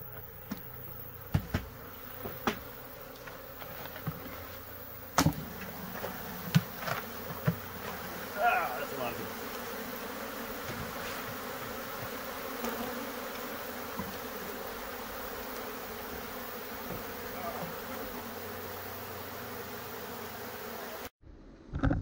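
A large cloud of agitated honeybees buzzing in a steady hum around a hive body they have just been shaken into from a bee vacuum. A few sharp knocks come in the first several seconds as the vacuum's bucket is handled, and the buzzing cuts off abruptly near the end.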